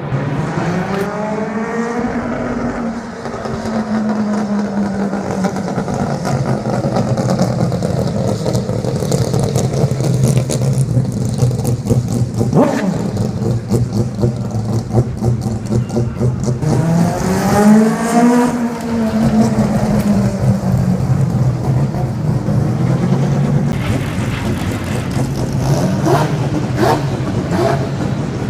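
Mazda 787B race car's four-rotor R26B rotary engine running, its pitch rising and falling twice, about two seconds in and again near eighteen seconds, over a steady low drone.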